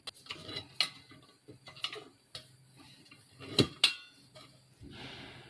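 Irregular light clicks and knocks of handling, with two sharper knocks close together about three and a half seconds in.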